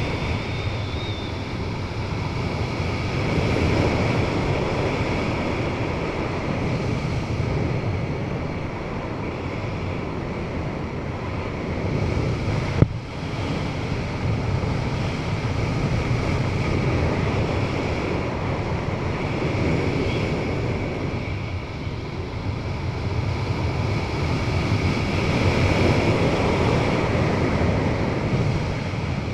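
Wind rushing over an action camera's microphone during a parachute descent under canopy, swelling and easing in slow waves. One sharp click about thirteen seconds in.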